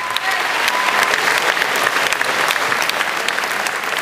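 Audience applauding, the clapping growing louder about a second in.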